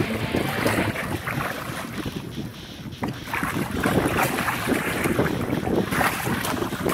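Water splashing and churning as a hooked hammerhead shark thrashes at the surface beside the boat, with wind buffeting the microphone. The splashing eases briefly a little before halfway, then picks up again.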